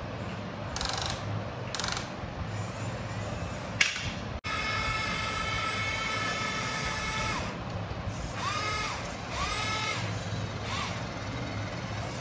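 Electric motor and gears of a radio-controlled scale crawler whining as it climbs. The whine is held steady for about three seconds, then comes in short throttle blips that rise and fall in pitch, with a sharp click just before the steady stretch.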